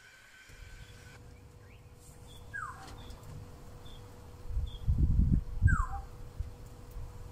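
Two short falling whistle-like animal calls, about three seconds apart, over a low rumble that surges loudest about five seconds in. A few faint high chirps are also heard.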